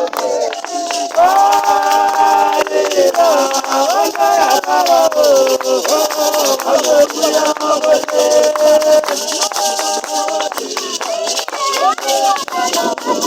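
A church congregation singing together in several voices, with hand rattles shaken in a steady rhythm over the singing.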